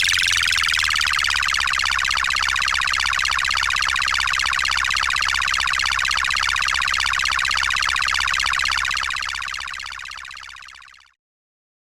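Electronic siren-type sound effect: a rapidly repeating rising sweep over a low hum, fading away near the end and then cutting off.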